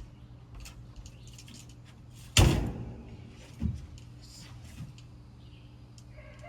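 A single loud, sharp clack from the BB rifle about two seconds in, then a softer knock about a second later.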